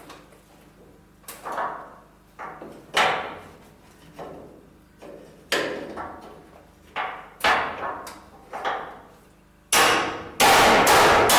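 Hammer blows on the steel of a shipping-container door, about ten separate strikes each ringing briefly. Near the end a loud continuous metallic noise starts up.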